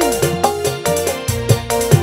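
Live dangdut band playing an instrumental passage: an electronic keyboard melody over a steady, fast drum beat, with no singing.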